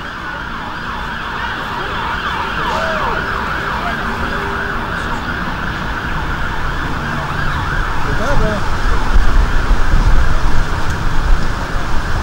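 Emergency sirens wailing, several rising and falling tones overlapping. A low rumble builds and grows louder in the last few seconds.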